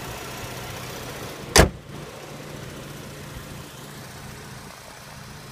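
The hood of a 2017 Buick Enclave slammed shut once, a single loud bang about one and a half seconds in, over the steady idle of its 3.6-litre V6.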